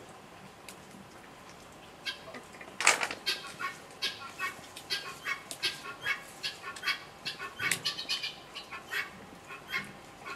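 Walnut shells cracking and snapping as kernels are pried out by hand: sharp, irregular clicks, several a second, starting about two seconds in after a quiet moment.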